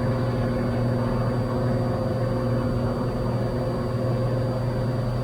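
Cessna 182's six-cylinder piston engine and propeller droning steadily at climb power, heard in the cabin.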